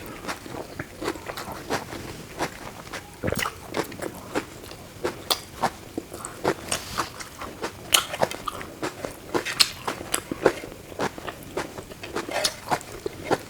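Close-miked eating: a person chewing and biting food, with irregular sharp crunches and mouth clicks, a few a second.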